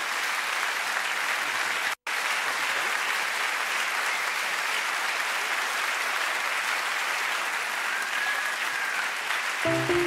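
Audience applauding steadily, with a split-second break in the sound about two seconds in. Just before the end, a few notes of an instrument begin to play.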